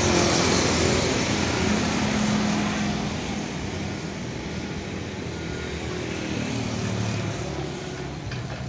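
Heavy machine's diesel engine running, its pitch shifting, loudest in the first few seconds and easing off after.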